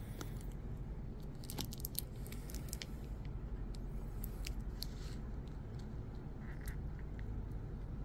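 Faint small clicks and crinkles of a tape-wrapped LiPo battery pack and its leads being turned over in the hands, over a steady low hum.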